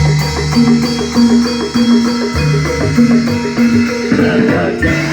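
Javanese gamelan music for jaran kepang: drums and tuned gongs and metallophones playing a steady, repeating rhythm.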